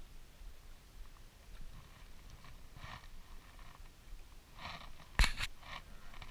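Close handling noise: a short scratchy rustle about three seconds in, then a few more rustles around five seconds in with one sharp click in the middle, likely from handling the spinning rod and reel.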